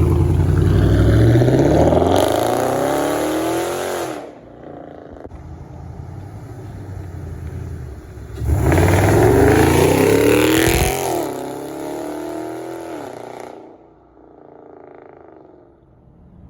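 Dodge Durango's 5.7 Hemi V8, fitted with aftermarket shorty headers and a cold air intake, accelerating hard twice. The engine note climbs until about four seconds in, then climbs again from about eight seconds, dips at a gear change, rises once more and eases off, going much quieter near the end.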